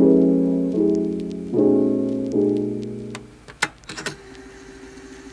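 Piano music: a chord struck about every 0.8 s, each one dying away, the music fading out about three seconds in. A few sharp clicks follow.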